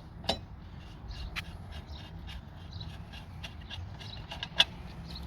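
Scattered light clicks and knocks of a tool and metal parts being handled while a spare tire is unfastened from a car's trunk. There are two sharper knocks, one just after the start and one near the end, over a low steady rumble.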